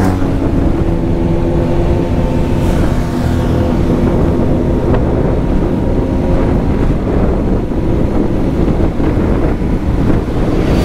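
Motorcycle engine running steadily at cruising speed, its hum clearest in the first few seconds, under heavy wind rumble on the rider's microphone.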